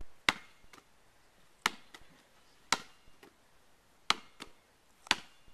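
A basketball smacking down on asphalt and into hands as it is passed back and forth, five sharp slaps about a second apart, each followed by a softer one.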